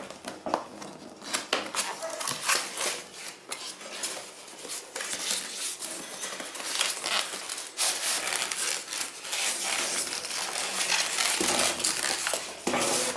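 Unboxing handling noise: a cardboard box being opened and a mini sewing machine in foam packing lifted out, with rustling cardboard, scraping foam and a run of small knocks and clicks, busier in the second half.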